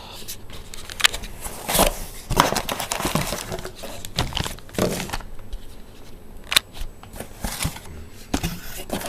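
Packaging crinkling and rustling as kit parts are handled, with irregular clicks and knocks.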